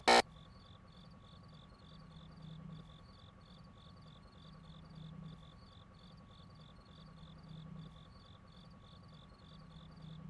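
A cricket chirping in a steady, even rhythm, about three chirps a second, over a faint low hum.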